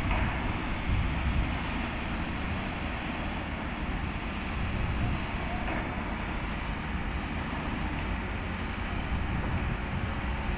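Mobile truck crane's diesel engine running with a steady low rumble.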